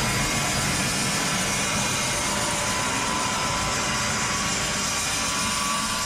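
Portable horizontal band sawmill running steadily, its motor and band blade making a continuous mechanical noise with a thin steady whine.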